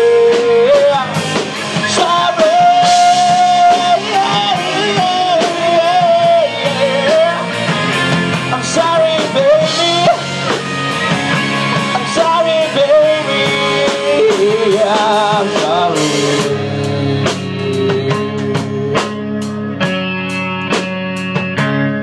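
Live rock band: a singer holding long, wavering notes over electric guitar, bass and drums. About three-quarters of the way through the voice drops out and the band plays on.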